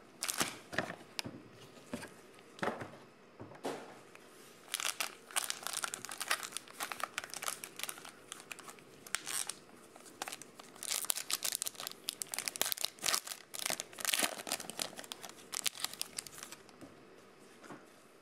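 Plastic wrappers of 2020 Donruss football card packs crinkling and tearing as the packs are handled and opened, in irregular rustling spells with a couple of brief lulls.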